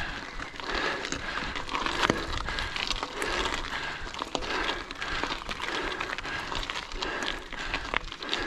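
A cyclist breathing hard, about one heavy breath a second, while pedalling a mountain bike up a steep climb in the lowest gear, with scattered clicks throughout.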